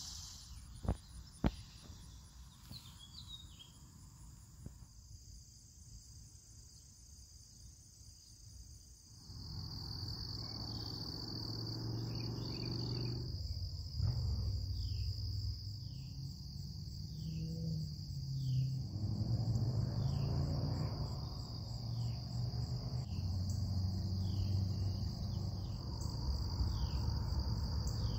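Steady chorus of crickets and other insects, with short falling chirps about once a second through the later part. Two sharp clicks come about a second in, and a low rustling rumble joins about a third of the way through.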